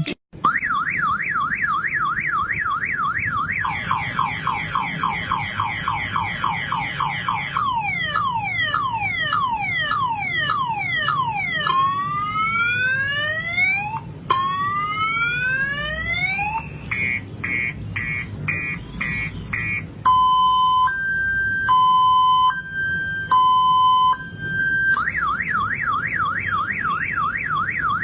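Bike anti-theft alarm siren cycling through its tone patterns: a fast up-and-down warble, then a run of falling sweeps, long rising whoops, quick chirps and a two-tone high-low alternation, before returning to the warble near the end.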